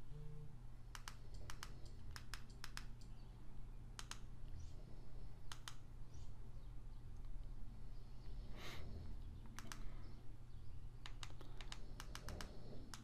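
Button clicks of a TV box's handheld remote, pressed in quick runs and pairs, with a steady low hum beneath.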